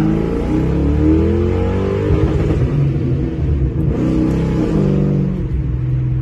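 Ford Mustang engine heard from inside the cabin under hard acceleration, its pitch climbing as the revs build and held high in one gear, with a drop in pitch about four seconds in. The automatic transmission is holding the gear too long before shifting.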